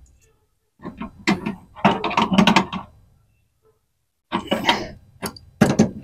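A wrench working the flare nut on an air conditioner outdoor unit's brass service valve, tightening it: rapid metallic clicking and rattling in two spells, the first about a second in, the second near the end.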